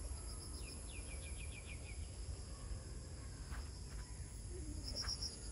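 Forest ambience at dusk: a steady high-pitched drone of insects, with a bird giving a quick run of about eight short, downward-sliding notes between half a second and two seconds in.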